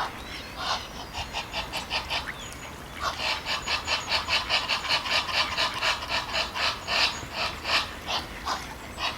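Ducks quacking in fast runs of short calls, about four to five a second, with a brief run early and a longer one starting about three seconds in.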